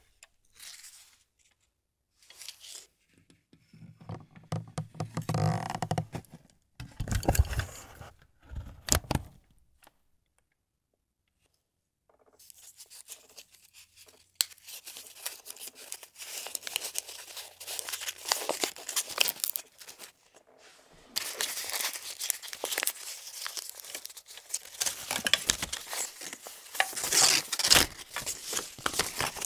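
An Agfa Billy Compur folding camera handled close to the microphone: a series of clicks and scrapes, a pause of about two seconds about a third of the way in, then a long stretch of dense rustling and scraping.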